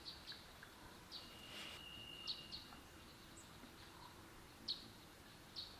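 Faint, scattered short bird chirps over a quiet background, with a thin high whistle held for a couple of seconds near the middle.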